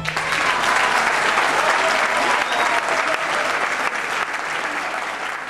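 Audience applauding: dense, steady clapping that slowly fades near the end.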